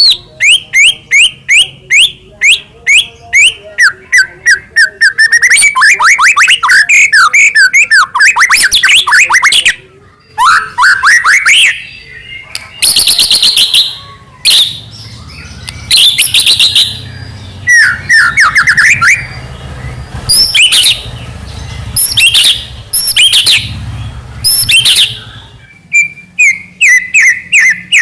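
White-rumped shama (murai batu) singing loudly in rapid runs of sharp repeated notes and rising slurred whistles, phrase after phrase with brief pauses between.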